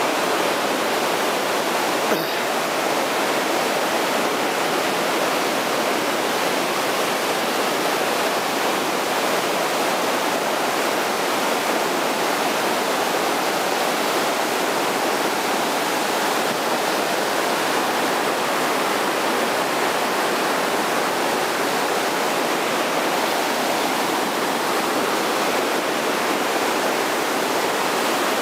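Fast mountain river rushing through whitewater rapids over boulders: a steady, unbroken rush of water.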